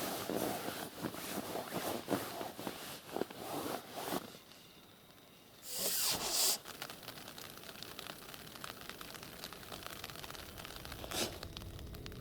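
Rustling and scraping handling noises, with a short loud rasp about six seconds in and a sharp click near the end.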